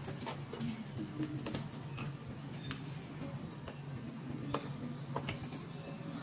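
Small plastic toy pieces being handled: irregular light clicks and taps, a few a second, over a low steady hum.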